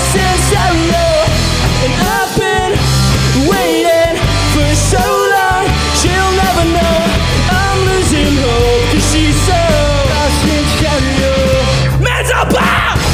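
A punk rock band playing live, with distorted electric guitars, bass guitar and a drum kit and a wavering melodic line on top. Near the end the low end cuts out for a moment before the band comes back in.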